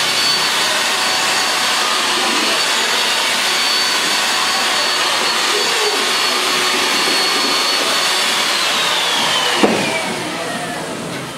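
An electric motor-driven appliance runs steadily with a high whine, then is switched off about eight and a half seconds in, its whine falling as it spins down. A single knock comes just after.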